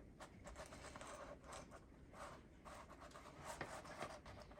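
Near silence with faint scratching and a few light clicks: small handling noises while caulk is worked into a granite countertop seam.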